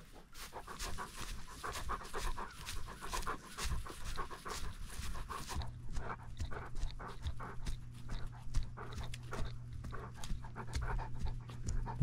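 A dog panting and sniffing right up against the microphone, in quick breaths throughout. A low steady hum comes in about halfway through.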